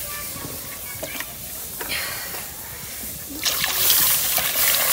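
Water poured from a plastic mug into milk in an iron wok (karahi): a loud splashing pour that starts about three and a half seconds in.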